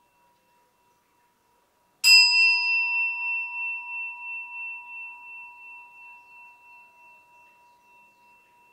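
A Buddhist bowl bell struck once about two seconds in. Its clear ring of several steady tones fades slowly with a pulsing waver over the next six seconds. Before the strike, only a faint ring from an earlier stroke lingers.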